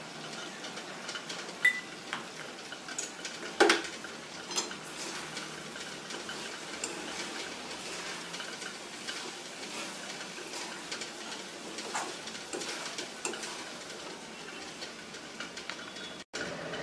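Steel spatula stirring and scraping chunks of brinjal and potato around a steel kadai over a light sizzle of frying, with sharp metal clinks now and then, the loudest about two and four seconds in.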